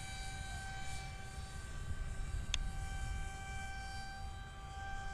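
Electric brushless motor and cut-down propeller of an RC F-22 Raptor model plane flying overhead, a steady whine that fades slightly near the middle and comes back, with wind rumbling on the microphone. A single short click about two and a half seconds in.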